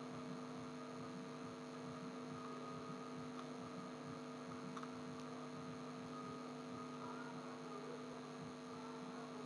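Faint steady electrical mains hum with a little hiss, unchanging throughout.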